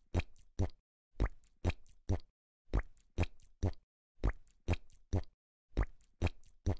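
Cartoon footstep sound effects: short, soft pops in quick groups of three, one group about every second and a half, as a small character toddles along.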